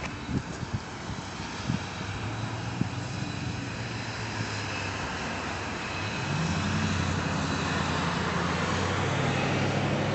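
A motor running with a steady low drone that rises in pitch and gets louder about six seconds in; a few light knocks in the first two seconds.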